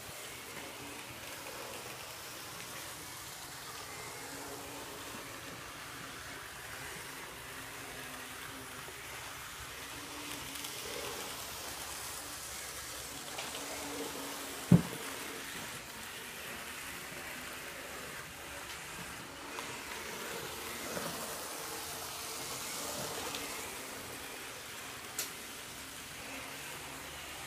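Märklin Z-scale model trains running on the layout: a steady hissing rattle of tiny wheels on the track with a faint motor hum that comes and goes. One sharp knock comes about fifteen seconds in, and a short click near the end.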